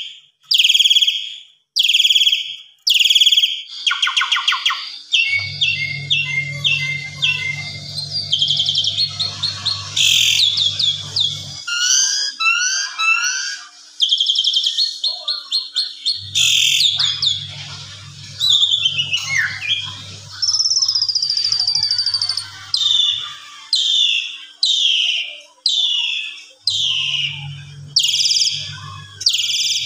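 Asian pied starling singing: a run of loud calls, each falling in pitch and repeated about once a second, gives way a few seconds in to a long, varied song of quick chattering trills and whistled notes, and the repeated falling calls return in the last few seconds. A low steady hum sits underneath in three long stretches.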